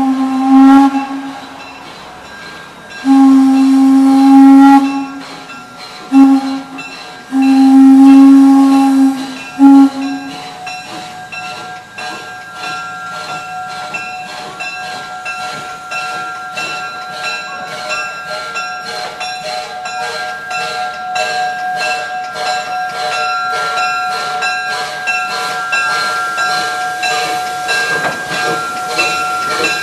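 Steam whistle of a small 0-4-0T tank locomotive blowing a series of long and short blasts for a grade crossing over the first ten seconds. After that a grade-crossing warning bell rings steadily, about two strikes a second, as the locomotive comes up to the crossing.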